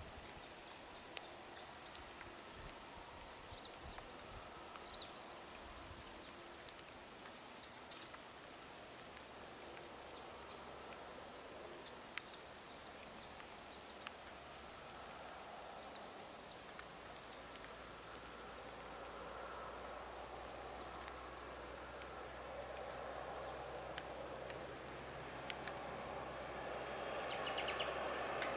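Steady high-pitched insect chorus drones throughout. Short high bird chirps cut across it, a quick pair about 2 seconds in and another about 8 seconds in, with single chirps at about 4 and 12 seconds.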